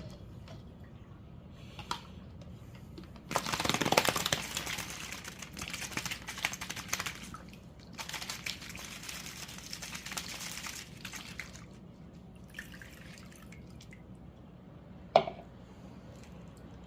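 A hard-boiled egg shaken in a cup with a little water, sloshing and rattling in two spells of a few seconds each, to crack and loosen the shell. A single sharp knock near the end.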